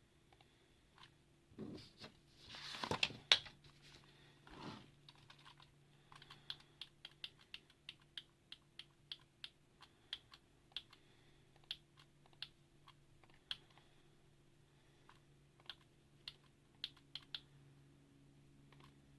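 Mechanical keyboard keystrokes: slow, irregular single clicks, about one or two a second. In the first few seconds there is a louder bout of handling noise with one sharp clack.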